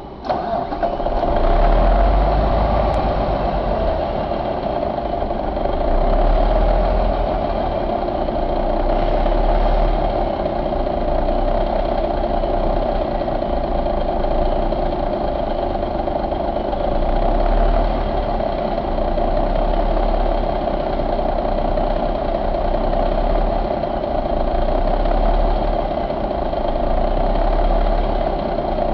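1989 Cummins Big Cam IV NT855 inline-six diesel engine firing up just after the start and then idling steadily.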